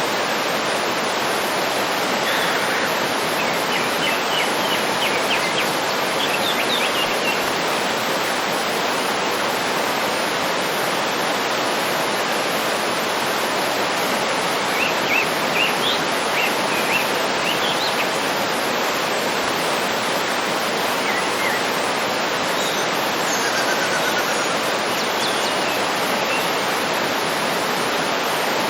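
Waterfall rushing steadily, with faint bird chirps and short trills over it a few times.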